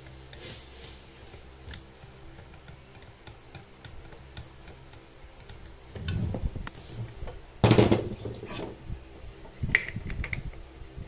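A Bosch GWS 060 angle grinder being handled on its cutting stand, with the grinder switched off: faint clicks at first, then knocks and scrapes of the tool against the stand from about six seconds in. The loudest is a single clunk a little before eight seconds, and near the end comes a quick run of metallic clicks.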